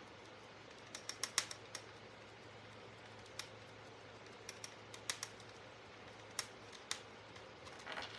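Light, scattered clicks and taps from fingers handling a small painted wooden craft piece on a plastic-covered table, with a quick run of clicks about a second in and single ones after.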